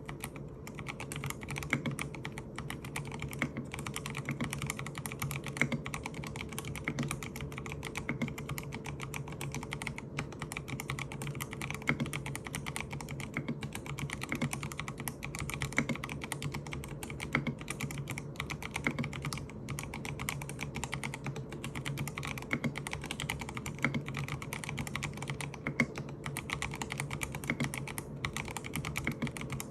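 Continuous fast typing on a MACHENIKE K500F mechanical keyboard fitted with its stock switches: a dense, steady run of keystroke clicks with a few louder strokes scattered through.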